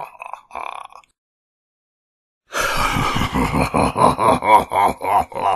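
Evil ghostly laugh sound effect: one laugh trails off in the first second, then after a silent gap a new laugh starts about two and a half seconds in, a fast run of loud 'ha' pulses.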